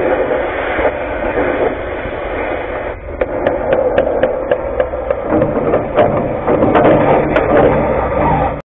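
Oxy-acetylene cutting torch hissing steadily as it cuts steel at a truck's leaf spring. From about three seconds in, sharp crackling pops, several a second, break through the hiss.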